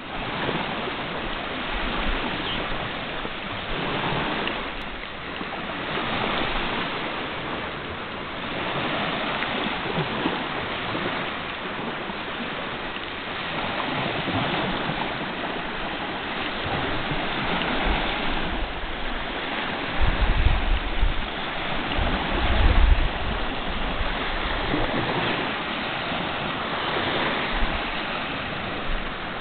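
Small lake waves lapping and washing up on a sandy beach in a steady, gently swelling rhythm. Twice, about two-thirds of the way through, low rumbles of wind buffet the microphone.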